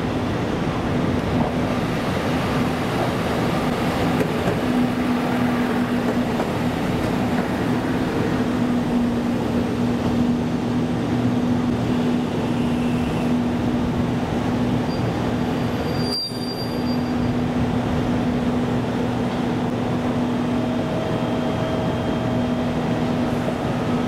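Diesel train's engine running with a steady droning hum. There is a single sharp click about two-thirds of the way through.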